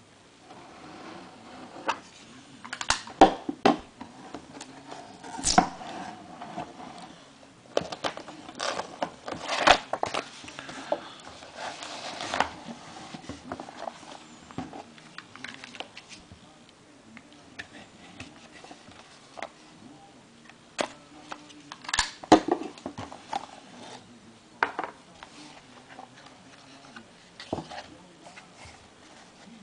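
Hands opening a factory-sealed trading card box and pack: irregular rustling and crinkling of wrapper and cardboard, broken by sharp clicks and taps, the loudest a few seconds in, around the middle and about two-thirds through.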